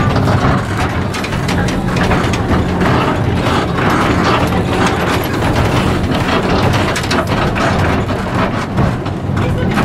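A 1912 electric tram running along its track, heard from inside its wooden cab: a steady low hum under continuous rattling and clicking of the car body and fittings.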